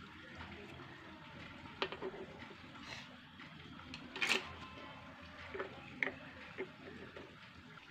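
Small plastic toy pots and pans being handled and set down on a table: about half a dozen light plastic clicks and taps, the loudest about four seconds in, over a faint steady hiss.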